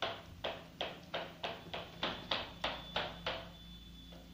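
A run of quick scratchy strokes, about three a second, from thread being pulled and wound around a coir-covered foam ball; they stop near the end.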